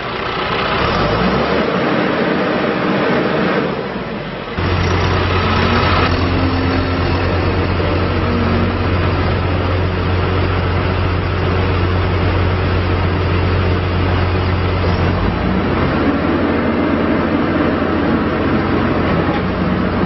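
2012 John Deere 310J backhoe loader's diesel engine running. About four and a half seconds in, the sound changes abruptly to a steady, deeper engine drone as the machine drives and raises its loader bucket.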